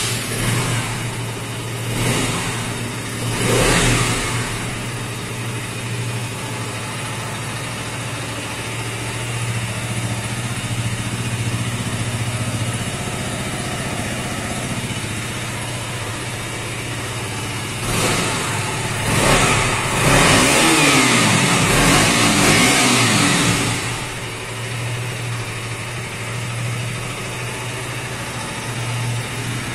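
KTM Duke 200 BS6's single-cylinder four-stroke engine starting up with a sudden catch, then idling steadily through its exhaust. It is blipped a couple of times in the first few seconds, twice more around 18 and 19 seconds, then held up for about three seconds before falling back to idle.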